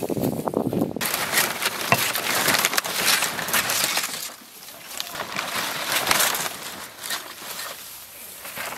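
Stiff palm fronds rustling and crackling as they are hacked off with a sickle: a run of sharp cutting and tearing strokes, thinning out in the second half.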